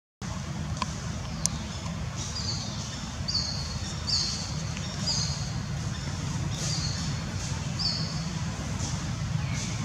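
A bird calling over and over in short, high, slightly falling chirps, about one or two a second, over a steady low rumble.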